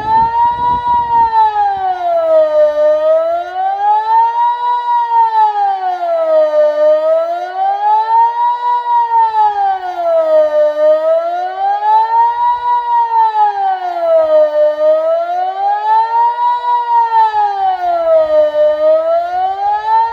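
Delta 8 civil-defence siren sounding a steady wailing tone that rises and falls about once every four seconds: the Swiss 'general alarm' signal, sounded here for the annual siren test. The siren cuts off abruptly at the end.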